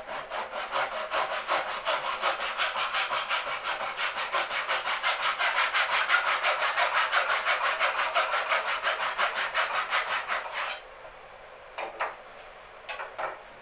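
Fast, even back-and-forth strokes of a hand tool rubbing on wood, about five or six a second, stopping about eleven seconds in. A couple of separate knocks follow near the end.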